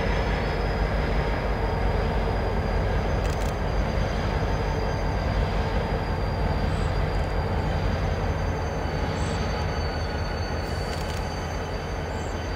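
Diesel locomotive engine running steadily with a low rumble as the locomotive creeps forward, a thin high whine held above it throughout.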